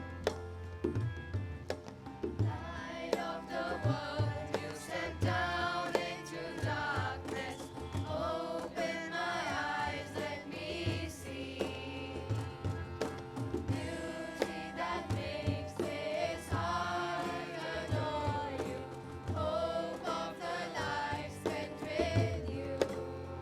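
A choir singing a song to instrumental accompaniment with a steady drum beat. Held chords and drum strokes come first, and the voices join about three seconds in.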